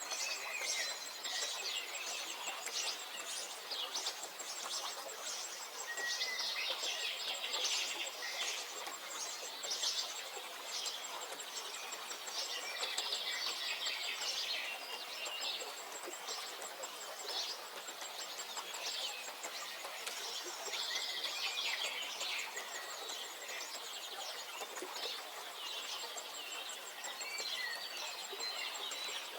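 Several songbirds singing and chirping at once, with quick trills and calls overlapping throughout. A very high, fast ticking trill runs on and off over a steady background hiss.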